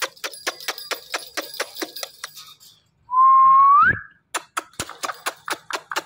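Indian ringneck parakeet clicking its beak against the wire of its cage, about five sharp clicks a second, with one loud, clear whistle about three seconds in that holds its pitch for most of a second and then rises.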